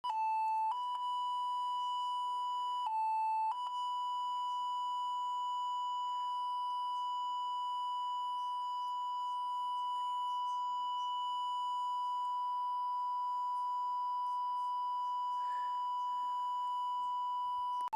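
Synthesized electronic tone imitating an Emergency Alert System attention signal. It drops briefly to a slightly lower pitch twice in the first few seconds, then holds one steady high pitch without a break.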